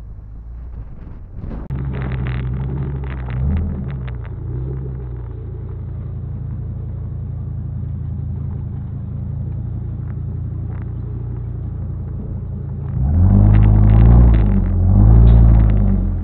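Ford E350 van's V10 engine heard close to its exhaust tip, running steadily at low speed. Near the end it revs up loudly twice.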